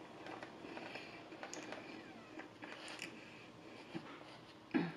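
Quiet, close-miked chewing and mouth sounds of someone eating fried chicken fingers: faint scattered small clicks and smacks. A short voiced 'mm' or breath comes just before the end.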